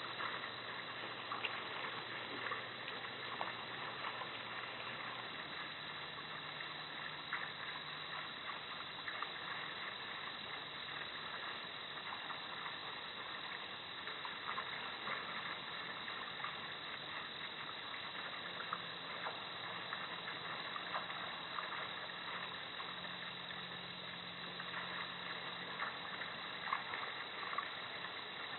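Steady outdoor night background noise through a security camera's microphone: a constant hiss with many faint ticks over a low hum that changes pitch a few times.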